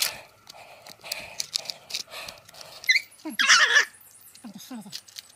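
A dog whimpering and yelping, with a loud cry about three and a half seconds in and short falling whines near the end, over rhythmic rustling in dry brush.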